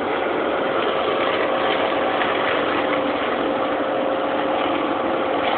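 Tractor engine and boom-arm flail mower running steadily while cutting a hedge, an even machine noise with a steady whine over it.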